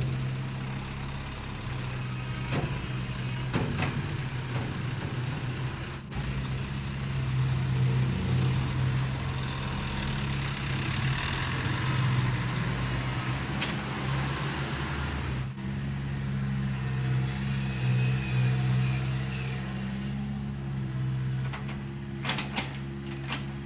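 Heavy diesel engine of a construction machine running steadily at a low, even hum, with scattered sharp knocks and clicks over it.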